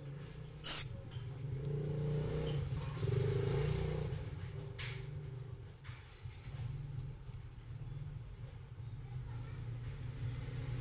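Two sharp taps of a phone's glass screen being set down and pressed on a rubber work mat, a loud one about a second in and a softer one near the middle, over a low steady rumble.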